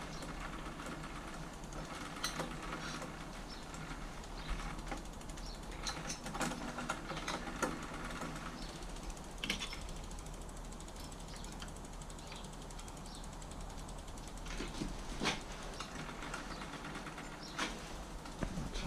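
Scattered light clicks and rattles of bicycle parts and tools being handled during work on the bike.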